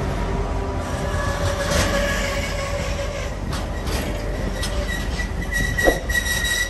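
Empty container flat wagons of a freight train rolling past close by, wheels rumbling and clattering on the rails. A steady high tone comes in about five seconds in, and there is a sharp knock shortly after.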